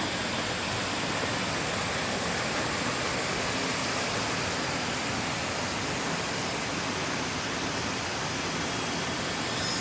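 Mountain stream water rushing steadily over rocks, an even hiss with no breaks.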